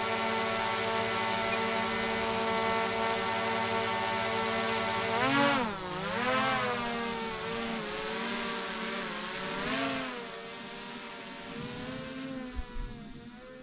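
An engine running at a steady pitch, which drops and rises together with its overtones about five seconds in. It then wavers up and down a few more times as its speed changes before fading.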